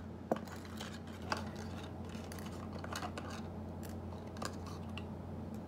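Small plastic items and their packaging being handled on a table: a few scattered light clicks and rustles over a steady low hum.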